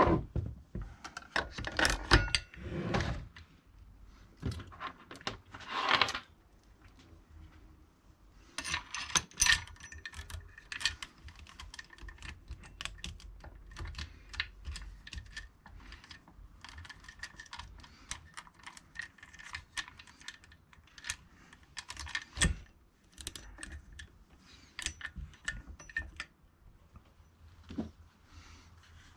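A loose .325 full-chisel saw chain and guide bar being handled and fitted onto a chainsaw: irregular light metallic clicks and rattles of the chain links, with a few louder clatters in the first ten seconds.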